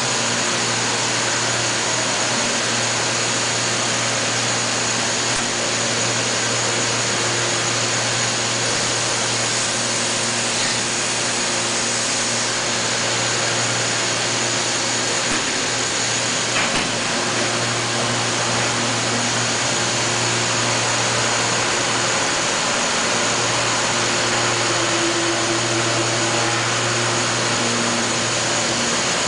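Makino SNC64 CNC vertical machining center running under power, a steady mechanical hum and whirr with a thin high whine, as its spindle head traverses the axes over the table. Fainter motor tones come and go along with the moves.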